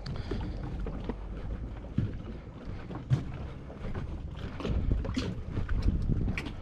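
Wind buffeting the microphone: a low, uneven rumble that grows stronger about two thirds of the way in, with scattered light knocks and clicks.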